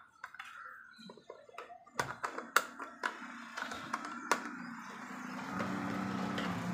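Hand screwdriver driving screws into the plastic back cover of an extension board, with scattered clicks and taps of the tip on the screws and plastic. Near the end a steady low hum comes up and grows louder.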